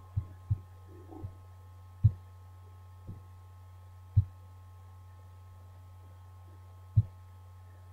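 Several sharp, single computer-mouse clicks spaced a second or two apart, over a steady low electrical hum.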